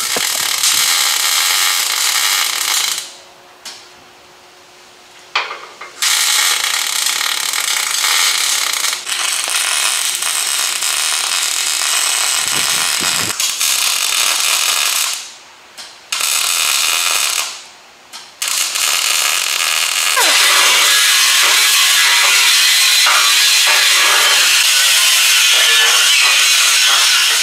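MIG welder crackling and buzzing as it lays welds on the sheet-steel front apron and radiator core support. It comes in several runs of several seconds each with short breaks between, the last and longest lasting about seven seconds.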